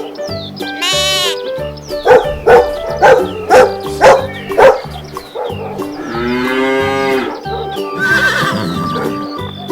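Children's music with farm animal sound effects. A short bleat-like cry comes about a second in, then six loud sharp strikes, then a long moo.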